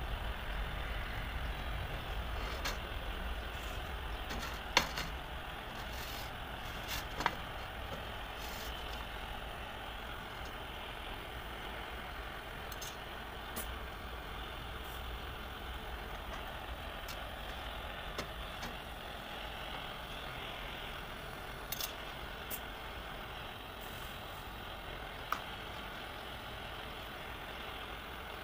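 A steady low rumble and hiss of machinery-like background noise, with a few sharp clicks and taps as the brass lantern box is handled.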